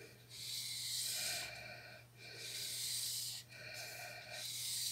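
A person breathing close to the microphone: several slow, soft breaths in a row, over a steady low electrical hum.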